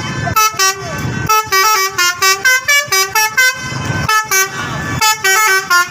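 Bus telolet horn, a multi-note musical air horn, playing quick melodic runs of short stepped notes several times over. Brief pauses with a low rumble fall between the runs.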